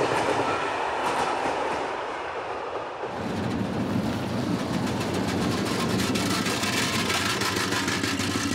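Rolling, rumbling vehicle noise that PANN hears as a train for the first three seconds. About three seconds in it changes to a three-axle ZIL truck's engine running as the truck drives, with a rapid rattling from its body and wheels.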